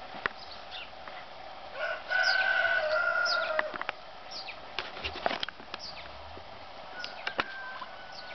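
Poultry-yard calls: one loud, drawn-out crow-like call, about a second and a half long, starting about two seconds in, over repeated short, falling high chirps and a few sharp clicks.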